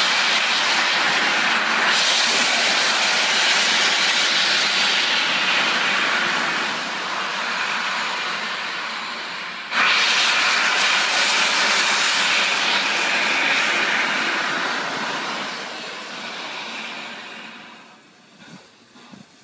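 Steam from LNER Peppercorn A1 locomotive 60163 Tornado blowing out at the front, by the cylinders, as a loud steady hiss. It breaks off for a moment about halfway, comes back suddenly, then fades away near the end.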